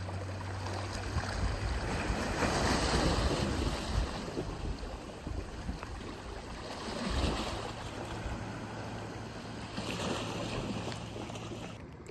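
Sea waves washing in, swelling about every three to four seconds, over a low steady hum that stops near the end.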